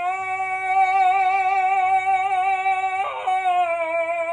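A man's voice holding one long, high sung note with a slight waver, with a short rough break about three seconds in and the pitch sagging a little near the end.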